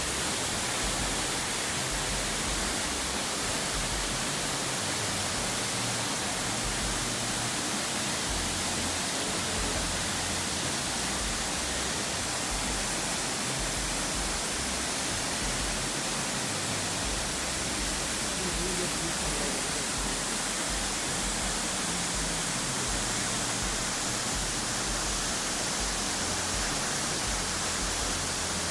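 Waterfall plunging into a pool: a steady rush of falling water.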